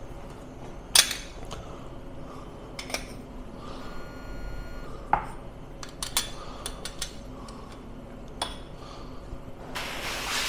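Sharp metal clinks and knocks of an espresso portafilter and barista tools being handled at the espresso machine, the loudest about a second in. A steady hiss starts just before the end.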